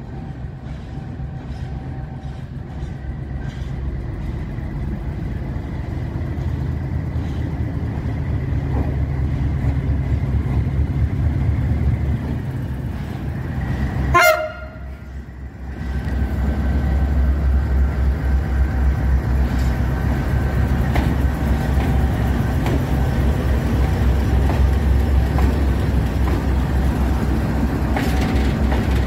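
Freight train of open coal wagons rolling past, its wheels clattering in a steady fast rhythm over a low rumble that grows louder. About halfway through comes one short, sharp horn toot.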